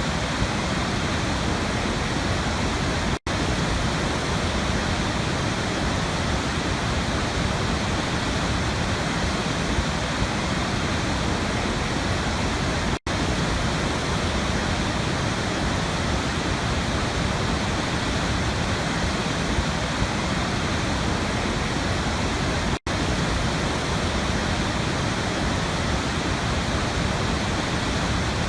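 Waterfall rushing in a steady, dense roar of falling water. It cuts out for a split second three times, roughly every ten seconds.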